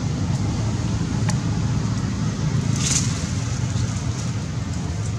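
Steady low outdoor rumble, with a faint click about a second in and a brief high-pitched sound about three seconds in.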